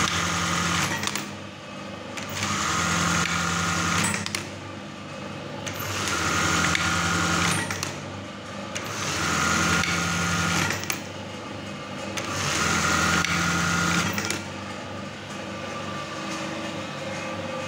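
Brother 814 buttonhole sewing machine running in repeated bursts of about two seconds, five in all, each ending in a sharp click, over a steady motor hum; near the end only the quieter steady hum continues. It is a test run of the freshly serviced mechanism, running without fabric.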